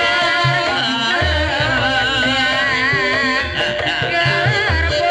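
Live Javanese gamelan music for an ebeg dance: a singer's wavering melody over gong and metallophone notes, with deep drum strokes every second or so.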